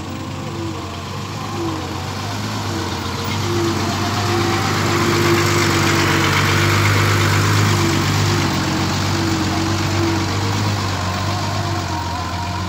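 Heavy diesel dump truck, loaded with soil, driving past close by with its engine running steadily. It grows louder to a peak near the middle, then fades slightly as it moves away.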